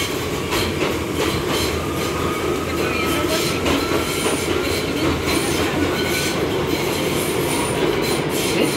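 R179 subway car running at speed through a tunnel, heard from inside the car: a steady rumble of steel wheels on the rails with scattered clicks over the track. A faint thin squeal of the wheels runs through the middle of the stretch.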